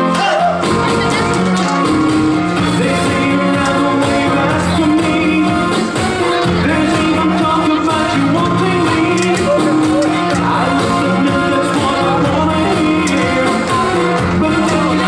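Loud Latin dance music with a singer over a steady beat.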